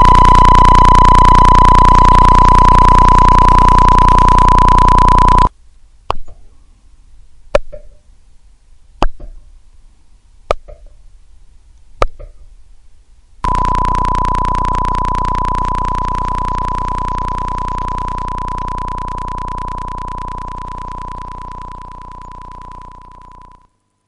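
A steady, buzzy electronic tone stops suddenly about five seconds in. Five sharp clicks follow, about a second and a half apart. Then the tone returns, slowly fades and cuts off just before the end.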